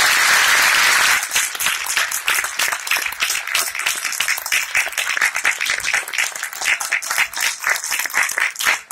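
Audience applauding: a dense burst of clapping at first that breaks into more separate, thinning claps toward the end.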